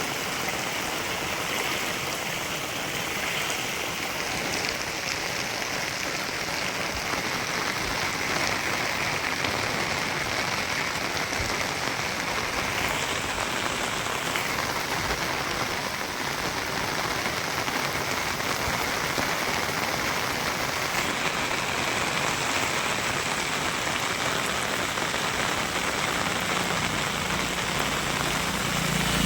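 Steady rain falling, an even hiss of drops on surfaces. A low engine hum comes in near the end.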